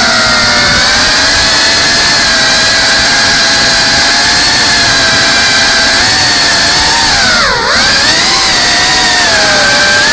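Motors and ducted propellers of a GEPRC CineLog 35 cinewhoop quadcopter whining in flight, the pitch wavering with the throttle. About three-quarters of the way through, the whine dips sharply and swings back up: a brief throttle cut and punch.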